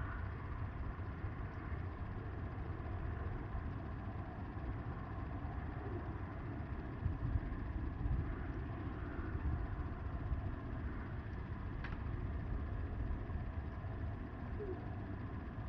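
Wind buffeting the microphone: a steady, gusty rumble with a faint hiss above it. There is one faint click about twelve seconds in.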